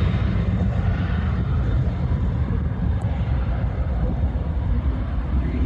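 Embraer Phenom 300 business jet's twin turbofan engines running on the runway, heard as a steady rumble with a hiss above it.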